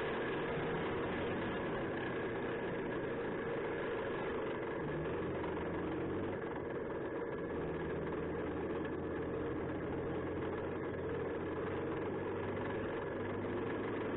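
Challenger CRARRV armoured recovery vehicle's Perkins Condor CV12 V12 diesel engine running steadily under way, heard from outside on the hull. About five seconds in, a deeper engine note comes in.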